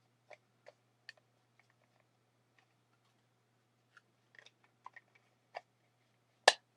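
Scattered light clicks and taps of a 3D illusion lamp and its packaging being handled and fitted back into the box, ending in one sharp, loud knock.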